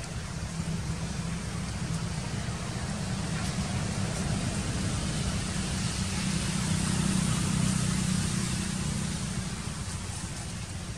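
Steady low motor rumble with a faint hum, swelling to its loudest about seven seconds in and then easing off.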